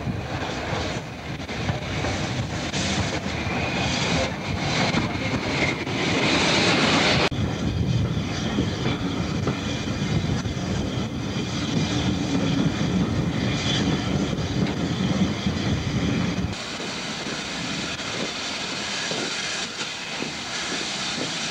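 Steam locomotive and its passenger train running, a loud continuous rush of exhaust and running noise. It changes abruptly about seven seconds in to a steadier, lower rumble, and again near sixteen seconds to a lighter hiss with less low end as steam drifts along the standing carriages.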